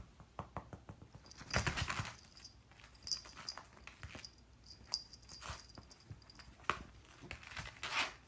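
A kitten playing with a cat teaser wand, scrabbling and pouncing: scattered taps, scuffs and rustles, with the loudest rustling scramble about one and a half seconds in.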